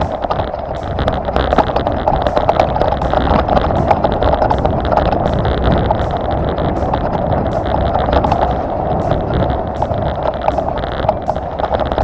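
Wind buffeting the microphone while riding an offroad trail, with a steady rushing noise and frequent short rattles and knocks from the ride over rough ground.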